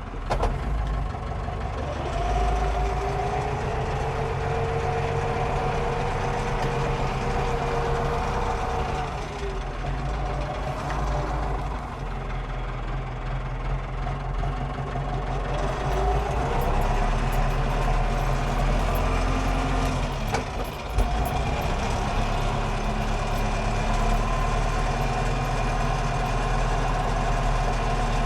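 Landini Blizzard 65 tractor's diesel engine running while driving, heard inside the cab, with a whine that rises and falls in pitch twice. A short clunk about two-thirds of the way through.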